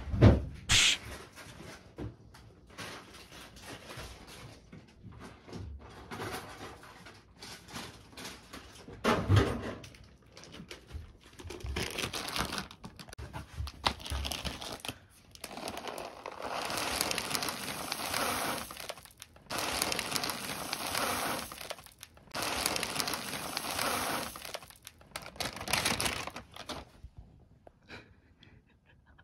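Dry cat food (kibble) being poured out of a plastic bag onto a heap around a cat's bowl: bag crinkling and a couple of thumps in the first half, then several long pours of two to three seconds each in the second half.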